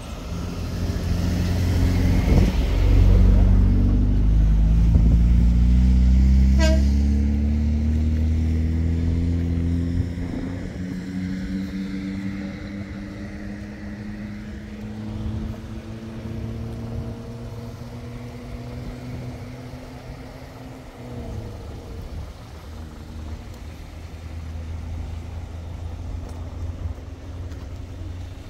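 A vehicle engine runs loudly close by for the first several seconds. Its pitch then rises slowly as it drives on and fades into a low traffic rumble.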